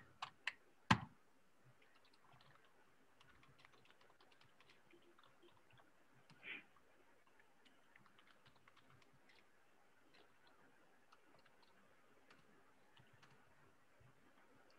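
Faint typing on a computer keyboard: a few sharper key clicks in the first second, then light, scattered tapping.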